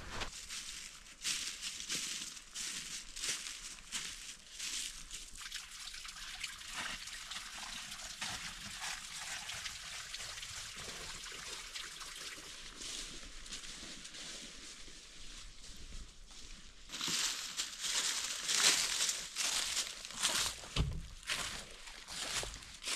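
Small spring-fed creek trickling with a steady hiss of running water, crossed by light crackles. Near the end, louder rustling and crunching comes over the water.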